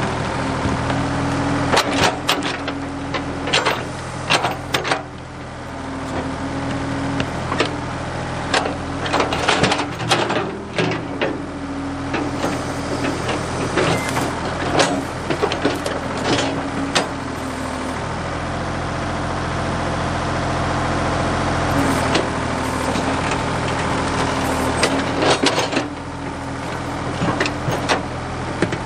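Ford 555 backhoe's diesel engine running steadily under load while wood cracks and snaps many times over, as brush and trees break.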